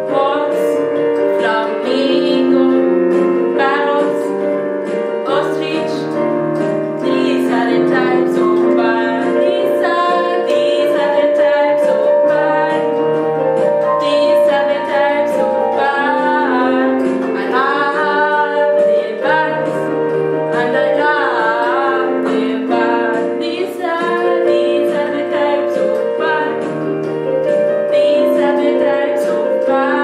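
A woman singing a short song over accompanying music of long held chords. Her voice wavers with vibrato on the held notes.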